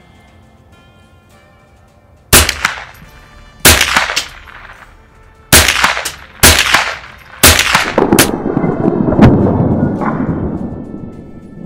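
Marlin Model 60 semi-automatic .22 Long Rifle rifle firing about five shots, one to two seconds apart, each a sharp crack with a short ring-off. A rushing noise rises after the last shot and fades near the end.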